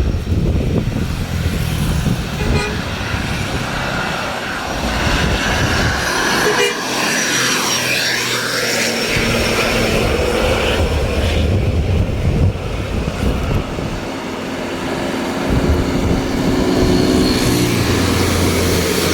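Tour buses driving past one after another, their engines rumbling, with a horn tooting.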